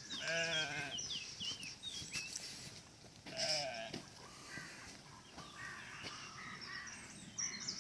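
Sheep in a flock bleating: one long, quavering bleat right at the start and a shorter one about three and a half seconds in.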